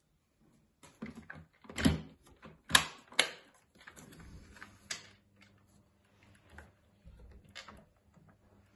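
Hard plastic parts of a Dyson Big Ball canister vacuum cleaner being handled, with a few sharp clicks and knocks (the loudest about two and three seconds in) and rustling of its paper and plastic packaging. The vacuum is not running.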